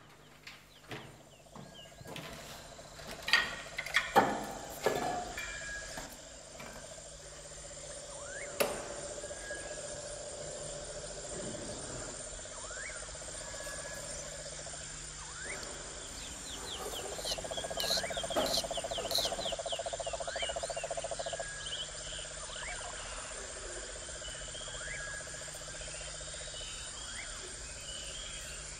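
Steady chirring of night insects, crickets among them, with scattered short chirps. A few sharp knocks and taps come in the first several seconds, and a louder trilling call rises over it for a few seconds past the middle.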